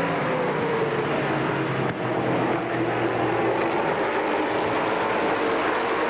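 A pack of stock cars racing past at full throttle, several engines running together in a steady drone, their pitch drifting slowly lower. It sounds dull, as from an old videotape recording.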